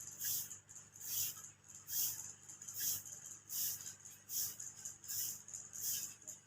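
Head massage: hands rubbing over hair and scalp in a steady rhythm, a brushing swish a little more than once a second, over a faint low hum.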